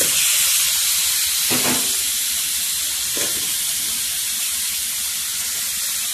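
Raw chicken pieces hitting a hot wok of fried spice paste in ghee, setting off a loud sizzle that starts suddenly and then holds steady, slowly easing off. Two brief knocks about one and a half and three seconds in.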